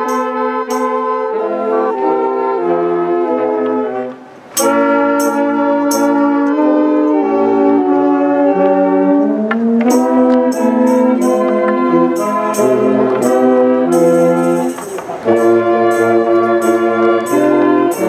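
Brass band playing a tune in full chords, with drum and cymbal strokes punctuating it; the music breaks off briefly about four seconds in and again near fifteen seconds before carrying on.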